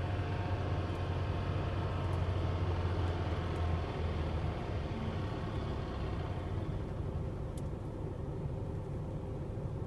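Minibus engine in runaway, racing out of control at high revs with a steady drone, heard from inside a nearby car. The drone eases somewhat about four seconds in.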